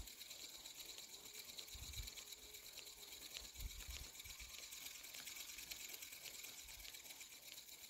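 Spinning reel cranked steadily during a spinner retrieve: a faint, even mechanical whir. A couple of soft low thumps come about two seconds and three and a half seconds in.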